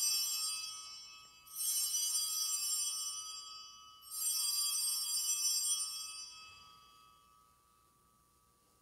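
Altar bells rung at the elevation of the chalice after the consecration: the fading tail of one ring at the start, then two more rings about a second and a half in and about four seconds in, each bright and shimmering and dying away over a couple of seconds.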